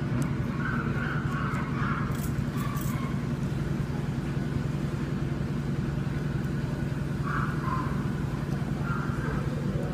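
Steady low mechanical hum running throughout, with a few faint light clicks about two to three seconds in.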